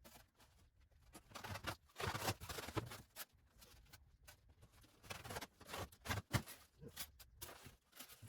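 Packaging being handled as a box is opened and unpacked: irregular rustles and light knocks.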